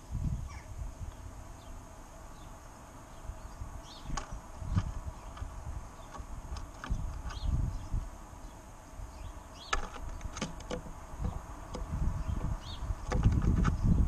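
Wind gusting over a GoPro's microphone in uneven low rumbles that grow stronger near the end, with faint short bird chirps scattered through.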